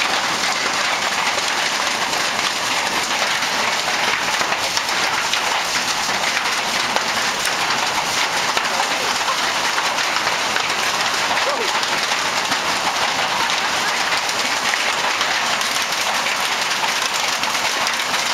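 Hail falling steadily and heavily, a dense, continuous patter of many small hits.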